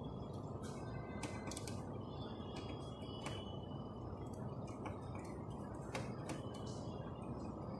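Scattered light clicks and creaks from work on a fire alarm panel, over a steady low hum, with a few short faint high chirps.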